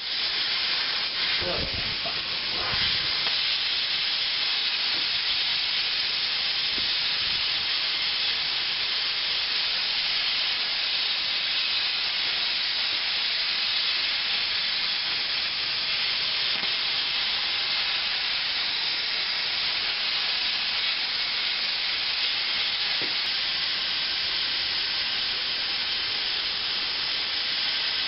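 Air plasma cutter torch cutting steel plate: a steady, unbroken hiss of the arc and air jet, with a few low knocks in the first seconds.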